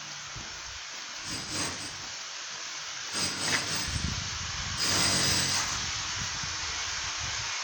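Steady hiss of outdoor background noise, swelling louder every couple of seconds, with an uneven low rumble from about halfway through.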